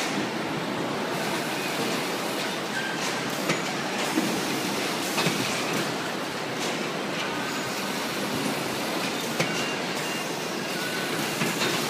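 Low carton palletizer and its packing-line machinery running: a steady mechanical noise with a few short knocks and clicks about 3.5, 4, 5 and 9.5 seconds in.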